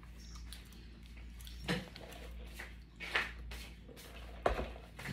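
A few brief clatters of dishes and food being handled while eating, spaced about a second and a half apart, over a low steady hum.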